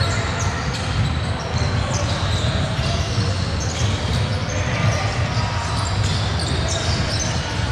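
Basketball game in a large gym: the ball bouncing on the court amid players' footwork, with players' voices in the background.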